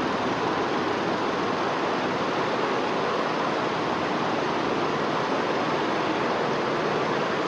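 Several computerised multi-head embroidery machines running together, a dense, steady clatter of many stitching heads that blends into a continuous loud noise.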